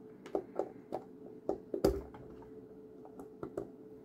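Irregular small metal clicks and taps as a lock is taken apart by hand to remove its insides, with one louder knock about two seconds in. A faint steady hum runs underneath.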